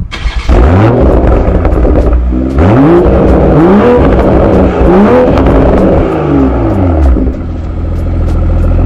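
Toyota Supra MK5's engine and exhaust starting with a loud flare, then revved up and down a few times in quick succession. It settles back to a steady idle for the last couple of seconds.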